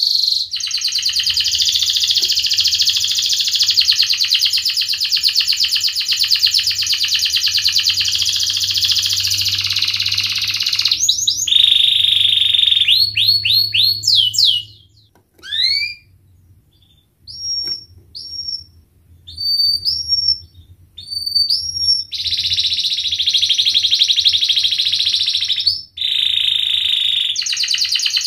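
Domestic canary singing: a long rapid trill for about ten seconds, then a run of quick rising sweeps and short upslurred notes with short gaps, then long trills again for the last few seconds, broken once. This is the long rolling trill that keepers call ngerek.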